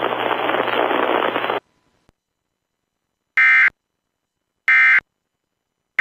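Emergency Alert System end-of-message code: three short, identical buzzy data bursts about 1.3 seconds apart, the signal that closes an EAS alert broadcast.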